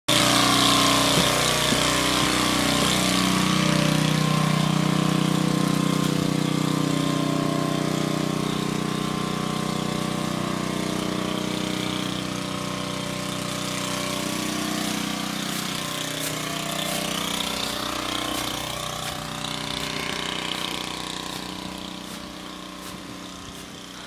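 A small engine running steadily with a low hum, fading gradually as it gets farther away.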